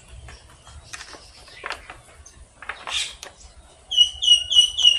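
Faint clicks and taps of small parts being handled. About four seconds in, a bird starts calling in a rapid run of short, high, falling notes, about five a second; this is the loudest sound.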